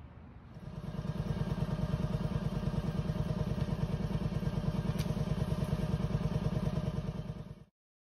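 Film projector running: a rapid, even mechanical clatter that starts about half a second in and cuts off abruptly near the end.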